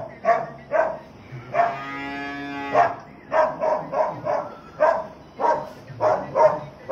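A dog barking over and over, about two barks a second, with one long steady note in the middle.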